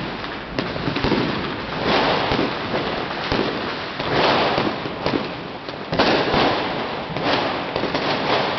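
Fireworks and firecrackers going off in a dense, continuous crackle, with louder bursts every second or two and a sharp bang about six seconds in.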